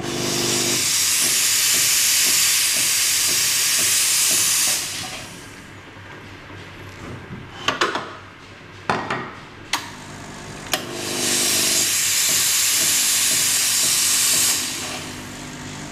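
Ferratti Ferro FCM 3012 espresso machine's steam wand purging: a loud hiss of steam for about five seconds, with a low hum as it starts, then a second blast of about four seconds later on. Between the two come a few sharp metal clicks and knocks.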